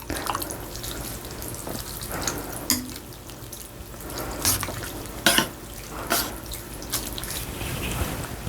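Close-up wet eating sounds from a bowl of janchi guksu noodle soup: noodles and broth sloshing and being slurped. Several sharp clicks of utensils are scattered through.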